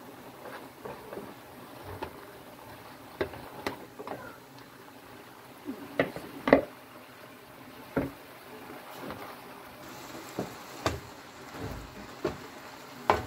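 Spatula knocking and scraping now and then against a frying pan of broccoli and shrimp, about eight scattered knocks, over a faint steady simmer of the liquid in the pan.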